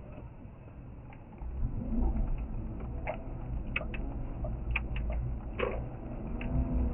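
Car cabin sound while driving slowly on a snowy road: a low engine and tyre rumble that gets louder about one and a half seconds in as the car speeds up, with a few scattered short clicks and knocks.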